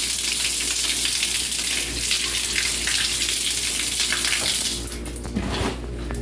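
Water spraying strongly from a washing machine's water nozzle, a steady hiss that dies away about five seconds in. The flow is strong again because the clogged nozzle has just been cleaned.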